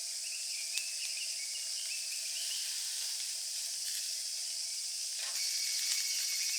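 Summer insect chorus with cicadas calling, a steady high hiss that grows louder with a fast, even pulsing about five seconds in.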